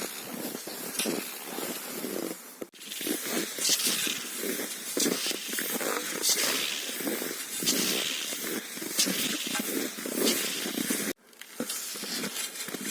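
Skis creaking and crunching on frosty snow along a ski track, a squeaky crunch with each stride, about one every second and a bit. The sound drops out for an instant twice.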